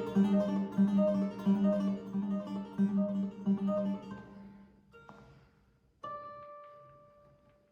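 Plucked string instrument playing a quick, repeating run of notes that fades out about four seconds in. A lone note follows about a second later, then a final note rings out and dies away, ending the piece.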